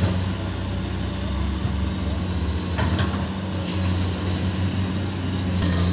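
Komatsu PC200 hydraulic excavator's diesel engine running steadily as the machine works, with two short knocks about three seconds in.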